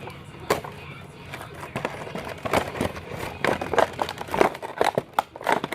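Packaging being handled and opened: irregular crinkling and rustling with sharp crackles, starting about half a second in and getting busier.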